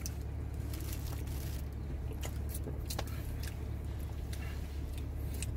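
Steady low hum of a car cabin with the engine running, with scattered small clicks throughout.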